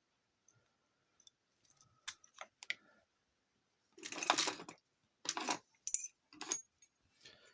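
Small hard objects being handled, clicking and clattering in a series of short knocks and rattles, the loudest clatter about four seconds in.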